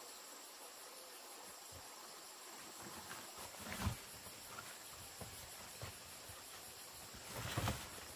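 Steady high-pitched insect chorus, with large leaves rustling and bananas being handled in a woven basket, louder twice: about four seconds in and again near the end.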